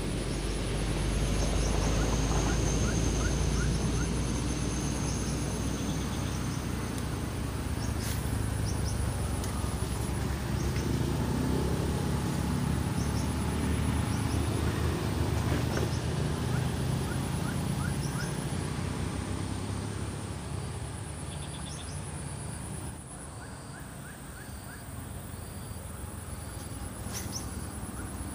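Insects chirping in a steady, pulsing high buzz, with a few short bird chirps and a low rumble underneath that eases a little past the middle.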